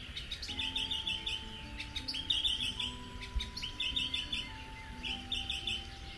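A small songbird repeating short, fast twittering phrases, about six in the space, over soft background music of slow held notes.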